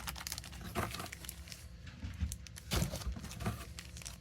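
Packaging being handled: irregular crinkling and rustling of plastic and paper, with louder rustles about a second in and again near three seconds.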